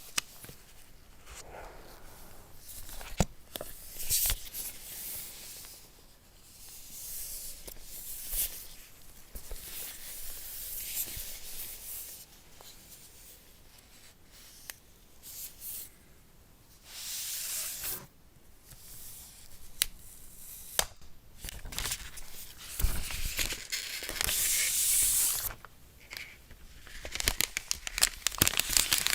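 Packaging being torn and crinkled during an unboxing: bursts of tearing and rustling of paper or plastic wrap, with a few sharp clicks and taps of handling.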